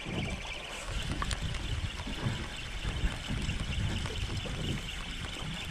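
Wind buffeting the microphone over a steady hiss of open sea around a small boat.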